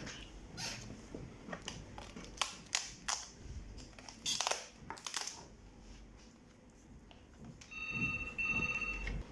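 Plastic display bezel of an HP ProBook 450 G6 laptop clicking and cracking as it is pried loose from the screen, a series of sharp snaps over the first five seconds. Near the end a steady electronic tone sounds twice back to back.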